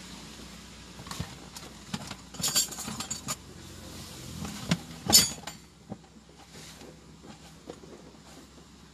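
A run of clicks, knocks and clinks, the loudest about five seconds in, over a steady hiss that drops away soon after.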